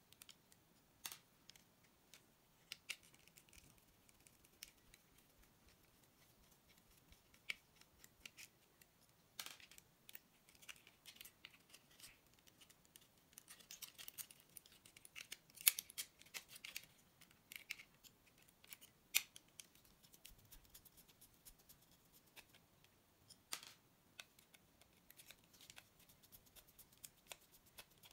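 Small plastic clicks and scrapes as a screwdriver and fingers pry apart a gaming mouse's plastic shell and internal parts. The taps are scattered, with a busier run of clicking and scraping about halfway through.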